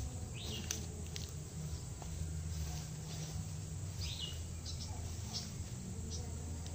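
Outdoor ambience of a steady low hum, with brief rustles of tall grass being pushed through and two short bird chirps, one near the start and one about four seconds in.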